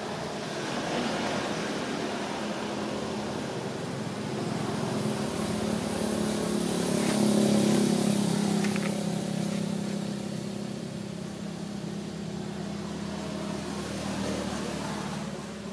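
Motor vehicle engine humming nearby, growing louder to a peak about halfway through and then fading, as of a vehicle passing.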